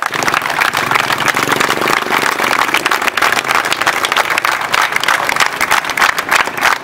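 A crowd clapping continuously, with voices calling out over the applause in the first couple of seconds; near the end the claps grow sharper and more separate.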